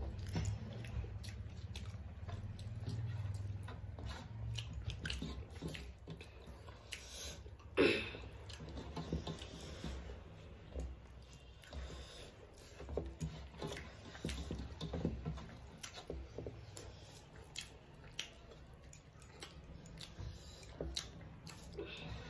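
Close-up eating sounds: wet chewing and mouth smacks, with fingers squishing and mixing rice and curry against metal plates, giving many small scattered clicks. One sharper, louder sound about eight seconds in.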